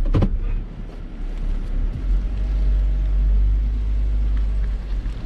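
A vehicle's engine and tyres rumbling at low speed, heard from inside the vehicle, a steady low rumble that grows heavier about two seconds in. A brief sharp sound comes just after the start.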